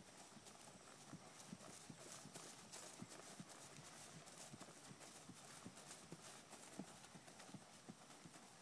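Faint, even hoofbeats of a horse trotting on grass.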